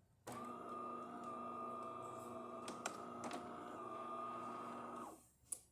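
DeLonghi Magnifica S espresso machine humming steadily for about five seconds as an internal motor runs after the shot, with two small clicks in the middle, then stopping.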